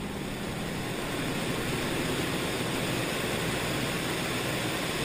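Junkers Ju 52 trimotor in level cruising flight: its radial engines and the rushing airflow blend into one steady, even noise with no distinct engine beat.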